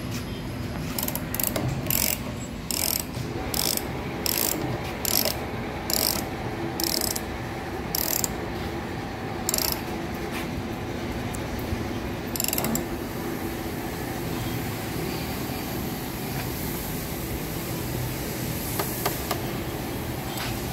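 Socket ratchet wrench being worked in short strokes on a bolt of a cap sealing machine, its pawl giving sharp clicks about one or two a second, stopping about two-thirds of the way through.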